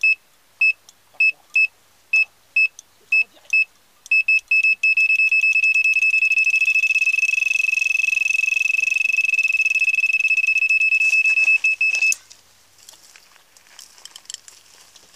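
Electronic carp bite alarm sounding a run: single-pitched beeps, about two a second at first, speeding up about four seconds in into an almost unbroken tone that cuts off suddenly about three seconds before the end. A fish has taken the bait and is pulling line off the reel.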